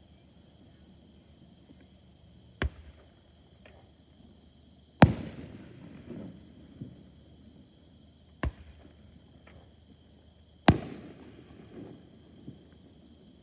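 Aerial fireworks shells bursting overhead: four sharp bangs a few seconds apart, the second and fourth much louder, each trailing off in a rumbling echo.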